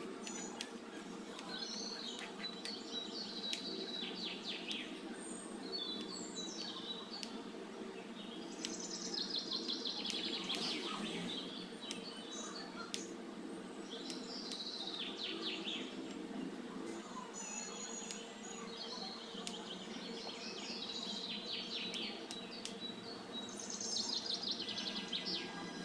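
Small birds chirping in repeated phrases of quick high notes every few seconds, over a steady low background noise. Light, scattered taps of a kitchen knife cutting green chillies and potatoes on a wooden chopping board.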